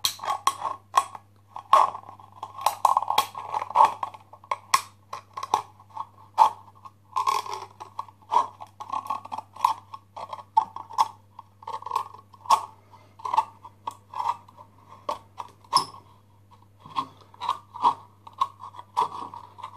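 Scissors cutting around the wall of a ribbed tin can: a run of sharp, crunching snips through the thin metal, about one to two a second, with the metal scraping between cuts.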